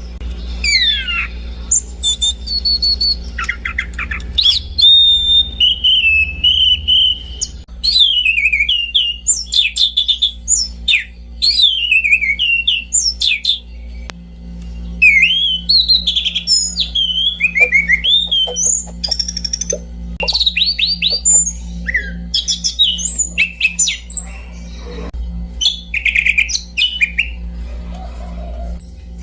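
Anis cendana (orange-banded thrush) singing a long, varied song of clear whistles, quick rising and falling slurs and short rapid trills, with only brief pauses between phrases.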